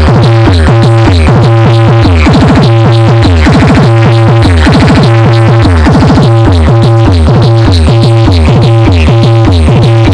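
Loud electronic dance music with a heavy bass and steady drum-machine beat, with fast stuttering rolls a few times in the middle.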